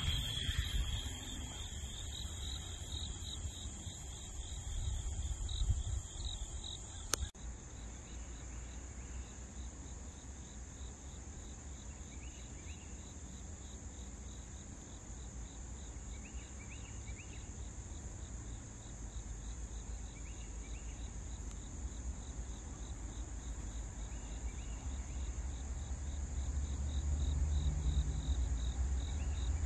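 Crickets and other insects chirping in a steady chorus, with a pulsing trill and short chirps repeating every few seconds. A louder high-pitched drone cuts off abruptly about seven seconds in, and a low rumble slowly builds near the end.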